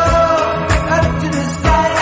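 Background music with a steady beat and a sung melody.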